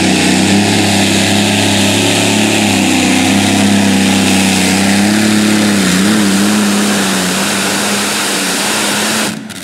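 Super modified pulling tractor's engine running hard under load as it drags the pulling sled, a steady high drone whose pitch wavers slightly about six seconds in. The sound falls away abruptly near the end.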